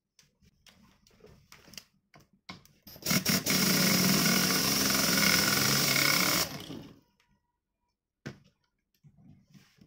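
Handheld power driver running for about three and a half seconds, spinning out the fastener that holds a spring balancer's damaged wire guide. It is preceded by a few light clicks of handling and stops abruptly.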